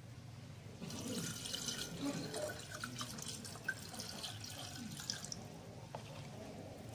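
Water poured from a plastic jug into a glass bowl already holding water and pebbles, splashing and bubbling from about a second in, stopping about five seconds in.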